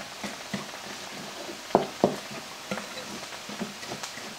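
Wooden spoon stirring a wet egg, milk and breadcrumb mixture in a glass bowl, with irregular clicks and knocks of the spoon against the bowl. A faint sizzle comes from onions and bell pepper sautéing in a pan.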